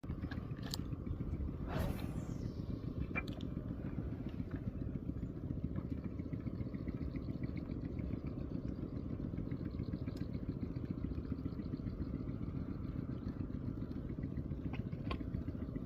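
A small engine running steadily, with a few faint clicks.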